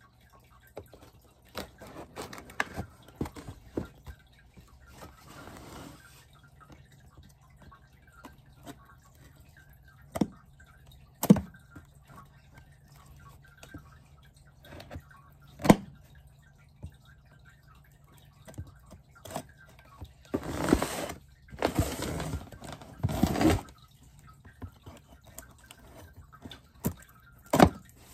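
Cardboard shipping boxes being shifted and slit open with a folding knife: scattered knocks and taps on the cardboard, and a few seconds of rasping as the blade cuts and scrapes along the box about twenty seconds in.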